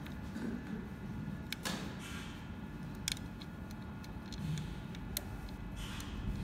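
Light metal clicks and scrapes as the steel blade of a 460/490 paper cutter and its fittings are handled during a blade change: a few sharp ticks at irregular moments over a steady low hum.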